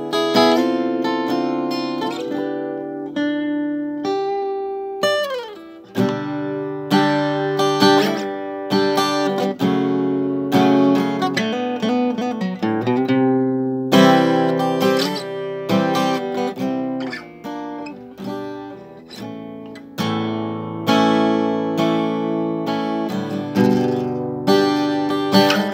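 Solo acoustic guitar playing a fingerpicked and strummed passage of single notes and ringing chords, with a quick slide up in pitch about five seconds in.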